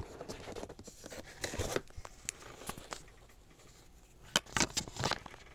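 Keyboard box and packaging being opened and handled: scattered rustling and scraping with light knocks, and a sharp tap about four seconds in followed by a cluster of rustles.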